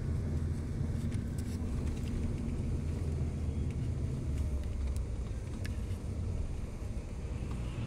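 Steady low rumble of a moving vehicle's engine and tyres on the road, heard from inside the cabin, with a few faint clicks.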